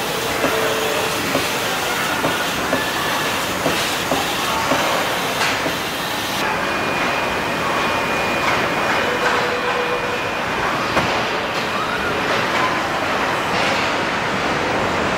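Car assembly-line machinery: a steady mechanical din of robots and conveyors with frequent clanks and clicks. A few short tones sound through it, and a thin high whistle is held for several seconds in the middle.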